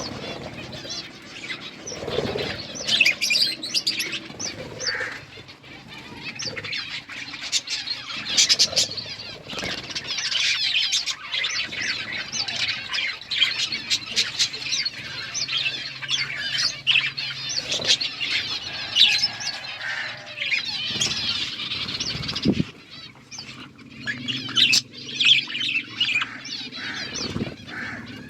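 A group of budgies chirping and chattering continuously, with short clicks and wing flutters among the calls.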